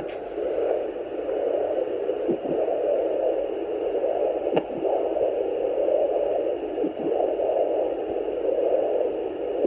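Fetal Doppler on a pregnant belly: a steady static hiss with no heartbeat, broken by three short, sharp blips about two and a half seconds apart, a fetus's hiccups.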